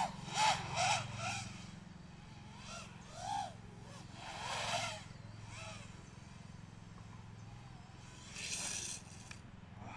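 FPV quadcopter's motors whining in short bursts that rise and fall in pitch as the throttle is worked. The bursts are loudest in the first second, then fainter and further apart, over a steady low hum.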